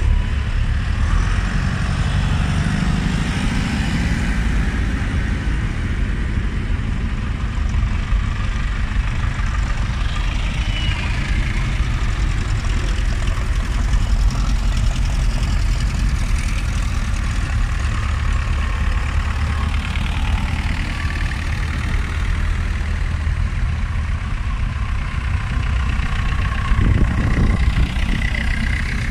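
Several vintage tractor engines running at low speed as tractors pull away one after another close by, over the chatter of a crowd. The engine sound gets louder near the end as one passes closest.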